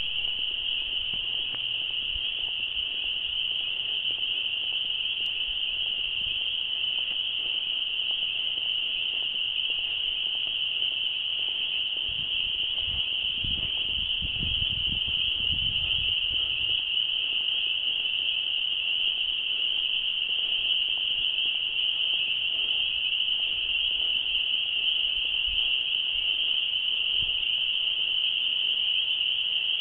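A dense chorus of spring peeper frogs, countless high-pitched peeps merging into one continuous, steady ringing. A brief low rumble comes about halfway through.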